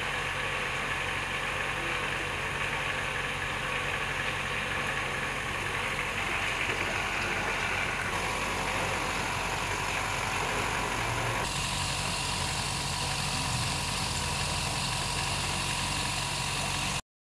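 A machine running with a steady hum, its tone shifting abruptly about eight and eleven seconds in.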